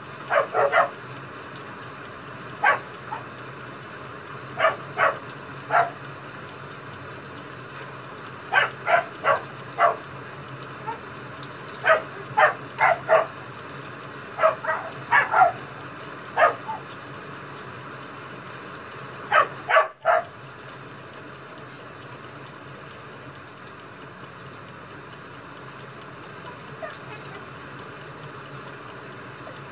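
A dog barking in short runs of one to four sharp barks, stopping abruptly about two-thirds in, over a steady rain-sound hiss.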